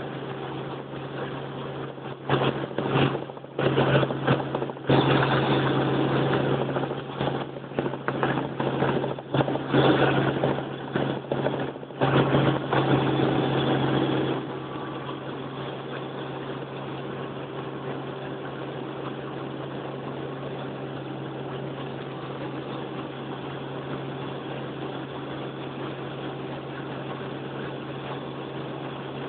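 Helicopter drone heard from inside the cabin, a steady low hum. Loud, irregular rushing noise comes and goes over it for about the first half, then the hum goes on alone.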